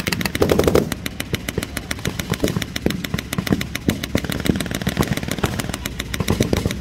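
Stuart light tank running and creeping forward, its engine droning low under a rapid, even clatter of steel tracks.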